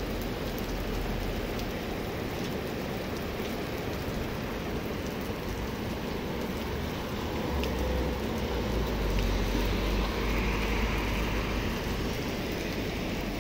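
Heavy thunderstorm rain pouring steadily onto wet pavement. In the second half a car passes on the wet road, swelling the sound for a few seconds with a low rumble and tyre spray.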